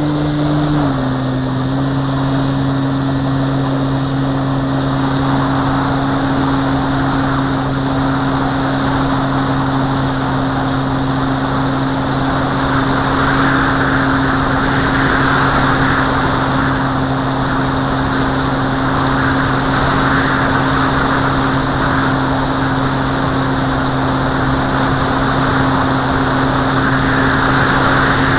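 Model airplane's motor and propeller running steadily at a constant pitch, heard on board; the pitch settles a little lower about a second in. Air rushes past, swelling now and then as the plane banks.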